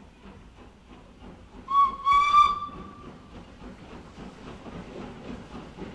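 Model train's steam whistle blowing once for about a second and a half, over a faint, rhythmic chugging.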